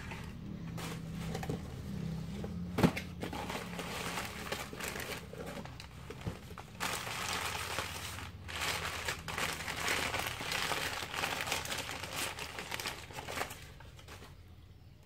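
Paper wrapping crumpled and rustled by hand as it is pulled off a small toy figure, in uneven bursts for about ten seconds, with a single sharp click about three seconds in.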